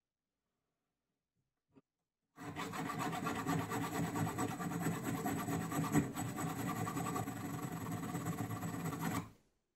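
A thin round file rasping steadily in the hole of a brass pipe end cap, metal on metal. It starts a couple of seconds in, has one sharper scrape partway through, and stops shortly before the end.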